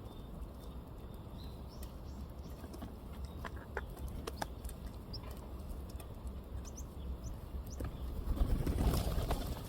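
Small wild birds at a food pile: scattered light taps and pecks with a few faint chirps, and a louder rush of wing flaps about eight to nine seconds in.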